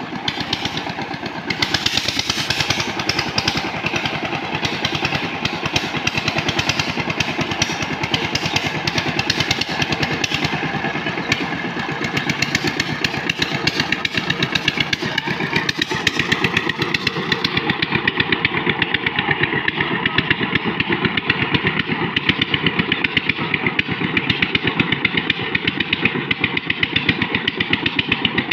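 Single-cylinder diesel engine of a two-wheel power tiller running steadily under load, driving its cage wheels through the mud of a flooded paddy field, with a rapid, even beat of firing strokes.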